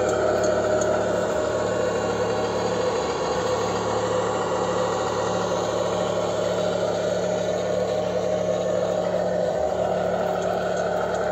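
Diesel truck engine idling steadily, played as a simulated engine sound by the 1/14 RC Scania R730's onboard sound module and speaker.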